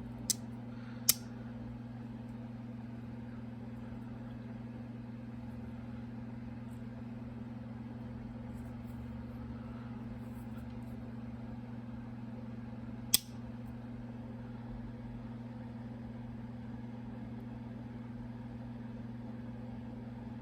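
Steady low hum with two sharp clicks near the start and one more about 13 seconds in.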